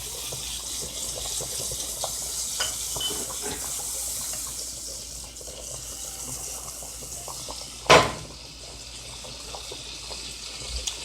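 Steak frying in butter in a pan: a steady sizzle. A single sharp knock about eight seconds in.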